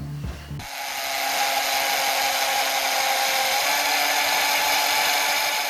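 Electric power tool running steadily at one speed, backing out the bolts that had been put through the laptop's hinge mounts. It starts abruptly about half a second in and cuts off suddenly near the end.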